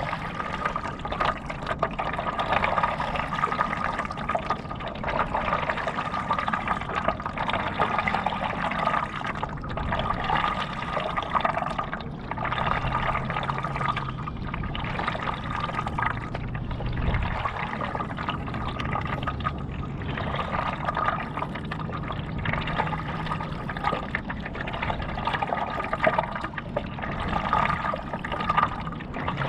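Water splashing and trickling from paddling a stand-up paddleboard: the paddle blade dipping and water running off it, swelling and easing every second or two.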